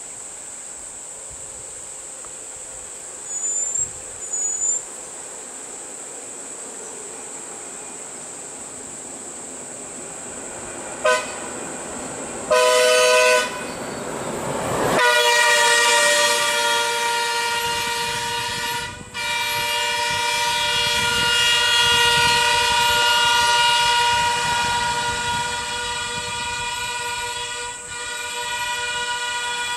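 Bus horns sounding at an elephant standing on the road. There is a short blast about eleven seconds in and a louder two-tone blast a second or so later. Then a long, nearly continuous blast runs through the second half, with one brief break.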